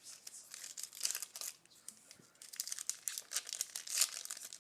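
Trading-card pack wrapper crinkling and cards rustling as they are handled, in irregular bursts of scraping with a short lull about two seconds in.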